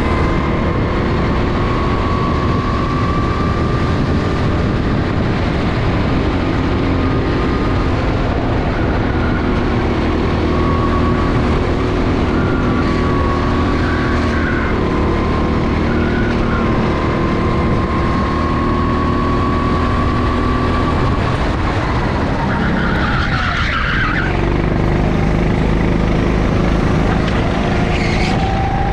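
Go-kart engine running hard, its note holding and gliding through the bends. A little over three-quarters through it drops sharply as the kart slows for a corner, with a brief tyre squeal, then climbs again near the end.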